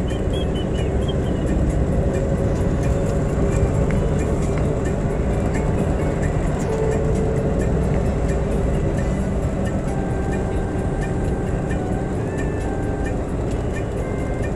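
Steady road and engine rumble heard from inside a moving vehicle driving along an open road, with no letup.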